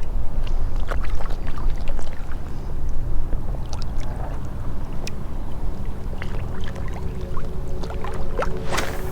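Water sloshing and splashing around the legs of anglers wading in shallow saltwater, over a steady low rumble. Music comes in near the end.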